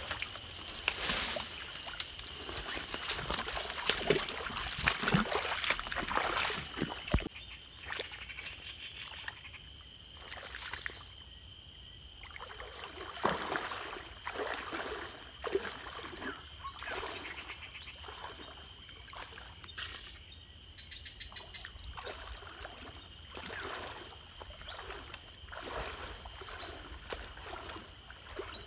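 Footsteps wading and sloshing through shallow floodwater, with branches and leaves rustling and snapping in the first several seconds. After that the splashing strides go on more quietly, about one a second, over a steady high-pitched insect chorus.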